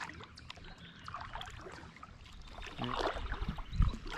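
Water trickling and dripping around a kayak gliding on calm water, with light clicks and knocks from the hull. A dull thump comes near the end.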